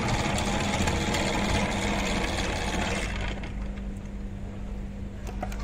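A machine running with a steady hum and a fast, dense rattle; the rattle drops away about three seconds in, leaving the hum.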